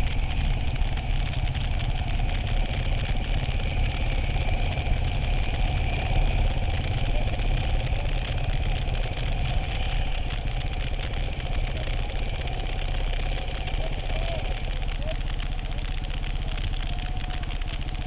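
Vehicle engine running steadily, with a constant low rumble.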